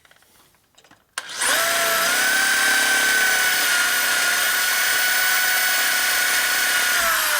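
Power drill starting about a second in, running steadily at high speed with a whine, then winding down near the end, as a broken carbide drill bit is run through a partly drilled hole.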